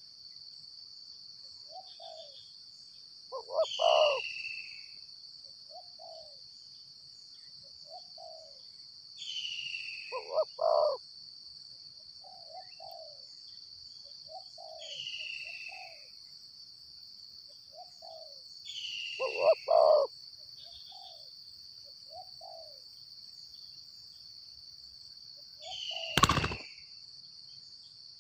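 Spotted doves cooing: soft low coos recur every few seconds, with louder double coos about four, ten and twenty seconds in. A steady high insect drone runs underneath, a falling high whistle repeats about every five or six seconds, and a single sharp knock comes near the end.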